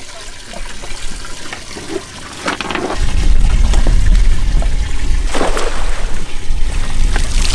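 Water trickling and sloshing around a wet cast net, then a heavy low rumble of wind on the microphone; a cast net splashes down onto the sea surface about five and a half seconds in.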